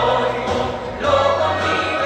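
Music with choir-like singing over a bass line whose low notes change about every half second to a second.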